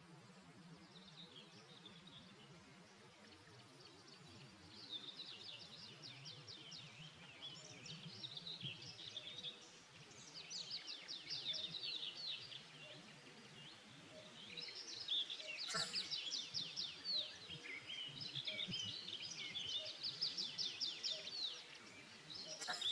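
Songbirds chirping and singing: quick, high, repeated trills and twitters, sparse at first and busier from about five seconds in. A single sharp click comes about two-thirds of the way through.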